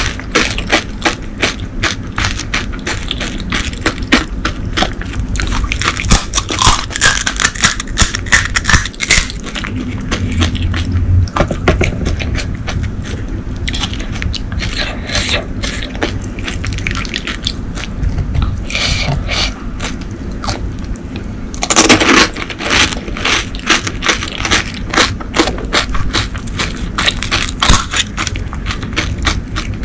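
Close-miked crunching and chewing of crisp fried panipuri shells, with sharp crackles as the hollow shells are cracked open by fingers. It is a dense, irregular run of crunches and clicks, with a louder cluster about 22 seconds in.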